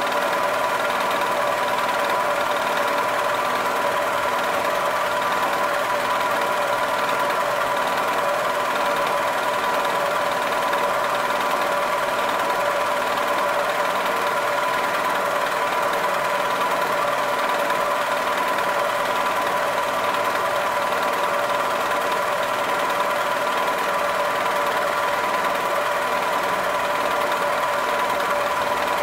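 Vertical milling machine running steadily with an even whine from the spindle while its end mill cuts a part that is being turned on a rotary table.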